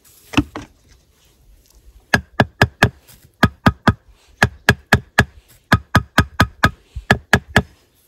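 A hammer tapping a red clay brick to settle it in the top course of a brick wall. There is one knock about half a second in, then, from about two seconds in, quick groups of three to five sharp knocks at about four a second, each with a brief ring.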